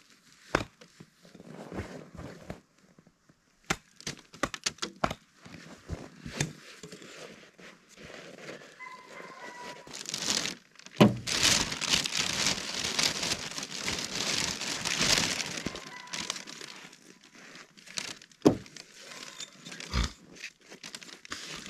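A hatchet chopping a frozen block on a wooden stump: a run of sharp cracks and knocks as the block shatters like glass instead of cutting, because it is so cold and has more water mixed in than usual. About ten seconds in, a plastic bag is handled, with loud crinkling for several seconds, and a few more knocks come near the end.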